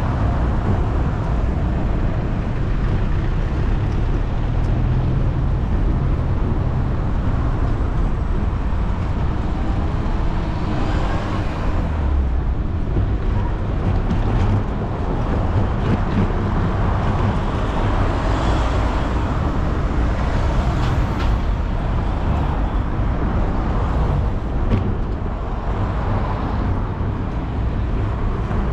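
Steady wind noise on a bicycle-mounted camera's microphone while riding, with car traffic passing on the street alongside. The traffic swells a few times as vehicles go by.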